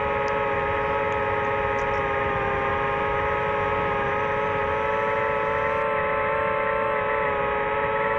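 DJI FPV drone's motors and propellers whining steadily in cruise, a stack of several held tones over a hiss of rushing air.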